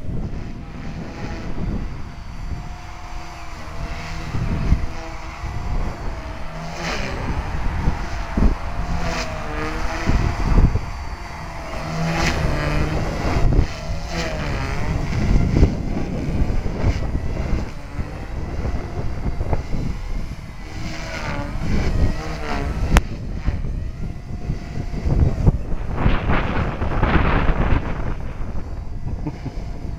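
Align T-Rex 250 electric RC helicopter's rotor and motor whine, the pitch wavering up and down as the rotor speed changes through 3D manoeuvres. Gusty wind buffets the microphone with a rumble that swells and fades.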